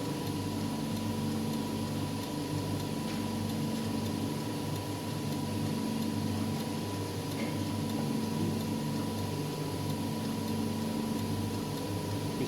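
Wire bonding machine running as its bonding tool forms wire loops: a steady hum with a thin high tone and faint light ticks.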